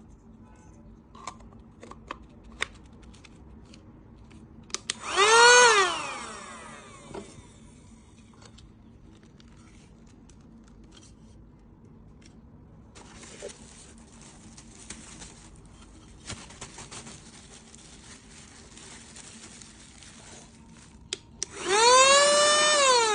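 A 9000Pa cordless mini car vacuum cleaner switched on briefly and off, its motor spinning up to a high whine and winding down, then handling clicks and rustling, then switched on again near the end for a second or two.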